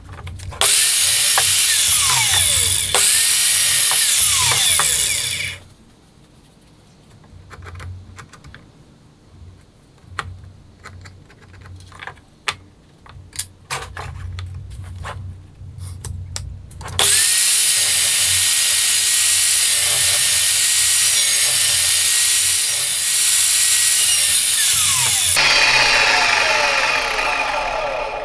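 Evolution R210SMS+ sliding mitre saw running and cutting into a wooden batten, making repeated depth-limited cuts for a half-lap joint. It runs twice for several seconds each time, with clicks and knocks of the wood being handled in between. Near the end the motor winds down.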